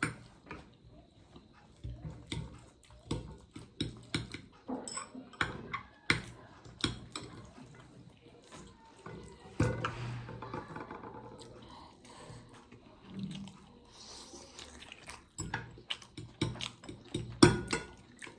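Scattered light clicks and taps of a fork against a plate while momos are eaten.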